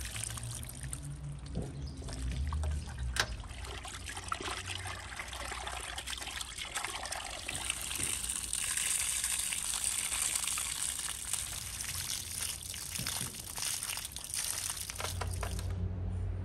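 Water pouring and trickling in a steady stream, heavier in the second half, then cutting off suddenly near the end.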